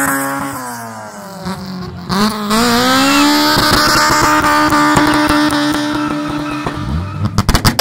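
Car engine revving hard during a burnout, with tyres spinning and hissing on the tarmac. The revs sag, then climb sharply about two seconds in and hold high and steady. Near the end the revs drop and a rapid string of exhaust pops and bangs starts.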